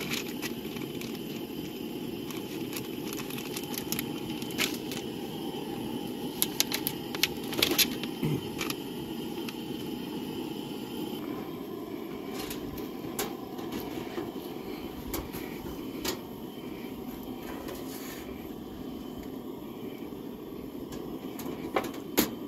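Handling sounds of camp cooking: scattered clicks, crinkles and taps from packaging, plates and a folding aluminium camp oven, over a steady low rushing noise.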